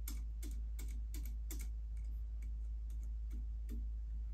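Light clicks as the jaws of a Wheeler scope-level barrel clamp are screwed closed by hand onto an air rifle barrel. The clicks come about three a second at first, then sparser and fainter, over a steady low hum.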